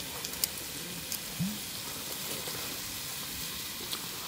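Pork belly sizzling on a camp grill: a steady hiss with a few sharp pops of spitting fat.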